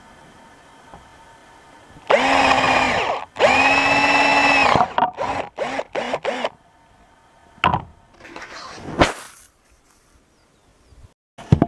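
Power drill running in two bursts of about a second each, spinning up and down, then several short trigger pulls, followed by a couple of sharp clicks.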